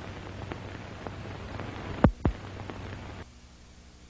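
Surface noise of an old optical film soundtrack: steady hiss and crackle with a faint low hum and scattered clicks, and two loud pops about two seconds in. Near the end it drops to a fainter hiss.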